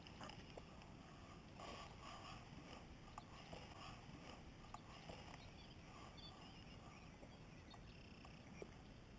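Near silence: faint outdoor ambience with a few soft, small clicks.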